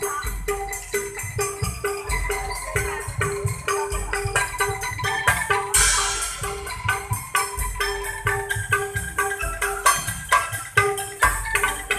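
Percussion music: a steady run of pitched mallet strikes over drum beats, with a cymbal-like crash about six seconds in.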